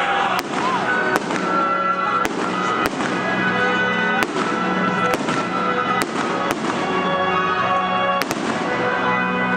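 Fireworks going off in about a dozen sharp bangs at irregular intervals, over music with long held notes.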